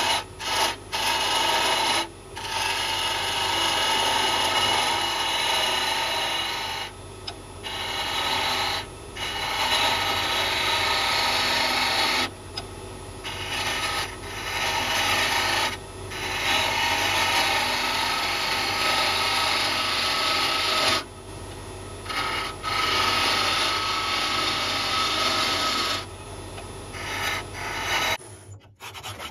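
A wood lathe spinning a wooden handle blank while a hand-held turning tool cuts it. Long stretches of steady scraping hiss from the cut are broken by short gaps where the tool eases off, over the low hum of the lathe motor. The sound stops shortly before the end.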